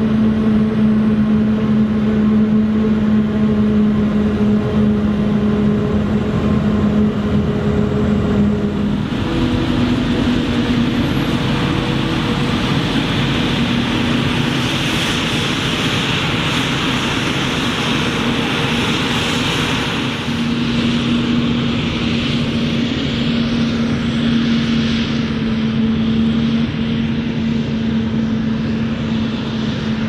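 A Claas Jaguar 950 forage harvester and a Fendt tractor pulling a forage wagon, their engines running steadily under load while harvesting maize. About nine seconds in the engine note shifts and a rushing hiss swells up, then eases somewhat toward the end.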